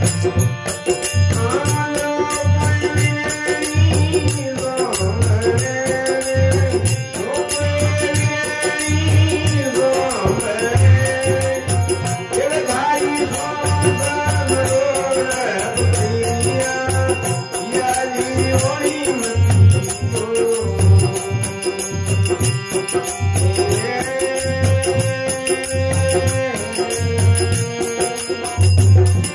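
Instrumental interlude of Indian folk music: a harmonium melody over a steady low drumbeat about once a second, with high jingling percussion.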